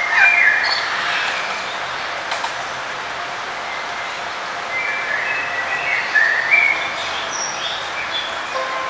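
Several birds chirping and calling in short, scattered notes over a steady background hiss.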